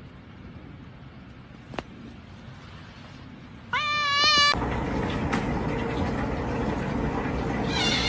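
A cat meows once, a single rising then wavering call about four seconds in, over a steady background hiss that gets louder after the meow.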